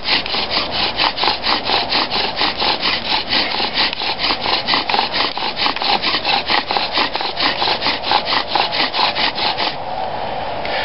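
Bow drill working: a binunga wood spindle grinding in a binunga hearth board as the bow is sawed back and forth, giving an even rasp of about four strokes a second that stops near the end. The spindle is smoking and throwing darkening dust, the stage of building heat toward an ember.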